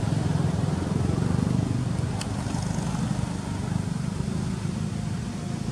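Steady low rumble of a running engine.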